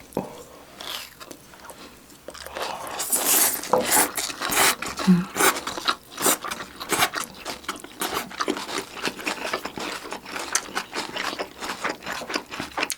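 Chewing and crunching a mouthful of chicken-and-rice chibap with shredded green onion, a dense run of quick crisp clicks that starts about two and a half seconds in.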